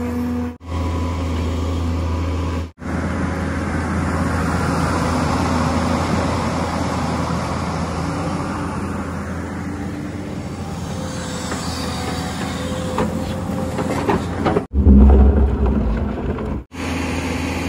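JCB JS215 tracked excavator's diesel engine running under load as it digs, with the hydraulics working. The sound breaks off briefly three times, and a louder low rumble comes about fifteen seconds in.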